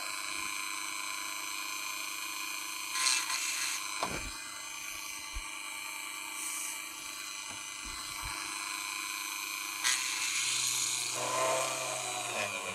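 Dremel rotary tool in a drill stand running steadily with a high whine, pushing a 2 mm bit gently through a metal clutch part. There are short hisses of aerosol lubricant spray and a few light clicks.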